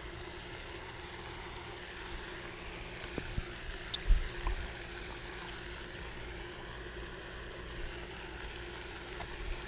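Steady low mechanical hum with one constant tone, like a distant engine or machine running. A few soft knocks and thumps come about three to four and a half seconds in.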